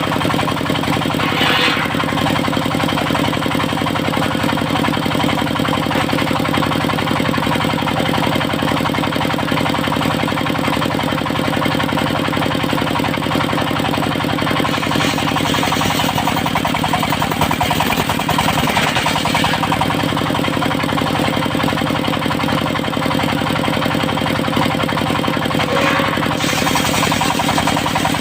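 Engine of a portable circular-saw sawmill running steadily at a constant speed, with a brief noisy surge a few times.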